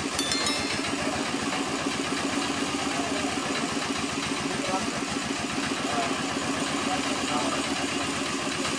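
A small engine running steadily at idle with an even pulse, the motor that drives a roadside sugarcane juice crushing machine. About a quarter second in, a short bright click and chime sounds once.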